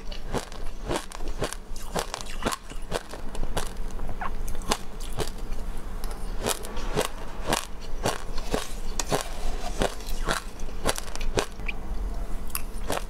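A person chewing a mouthful of mixed seeds, with sharp crunches about twice a second.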